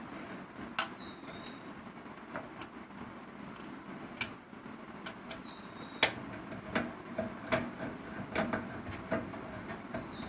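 Screwdriver tightening a screw that holds a motherboard in a steel computer case: irregular small metal clicks and taps, the loudest about six seconds in.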